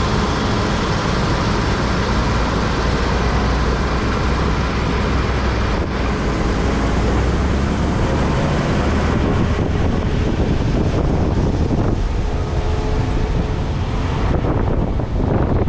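Heavy farm machine running steadily in the field, its diesel engine note low and continuous under a broad rushing noise, with wind on the microphone.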